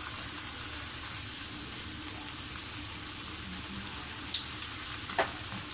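Chopped vegetables sizzling as they stir-fry in a pan: a steady hiss, broken by two sharp clicks about four and five seconds in.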